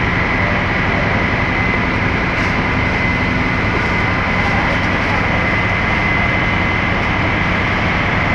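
Fire trucks' engines running steadily at a fire scene, a low drone under a constant high-pitched whine and a wash of noise.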